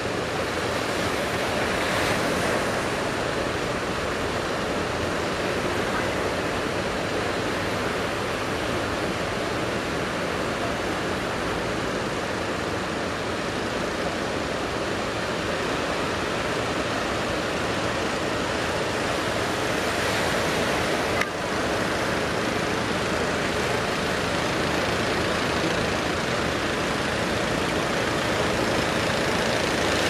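Heavy ocean surf breaking and washing ashore: a steady rushing noise, with one brief knock a little past two-thirds through.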